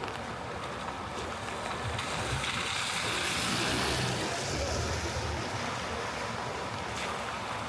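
Steady hiss of rain falling on a wet city street, growing louder for a couple of seconds in the middle.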